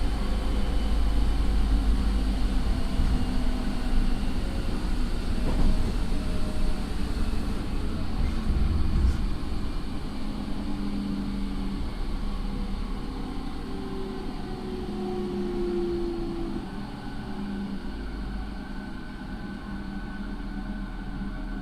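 JR 209 series electric train running, heard aboard a motor car: a steady rumble of wheels on rail with the whine of its Mitsubishi IGBT inverter and MT68 traction motors. The sound eases off somewhat about two-thirds of the way through.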